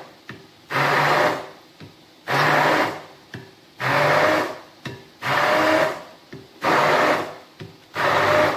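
Hand-held stick blender whizzing an egg and cottage cheese mixture in a glass bowl. It runs in six short bursts of under a second each, about one every one and a half seconds, with the motor's pitch rising a little within the later bursts.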